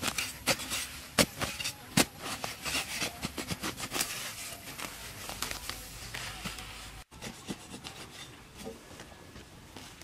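A hand tool's blade chopping into grass-covered soil to cut turf: a quick, irregular run of sharp strikes. About seven seconds in the chopping breaks off, and the strikes that follow are fainter and fewer.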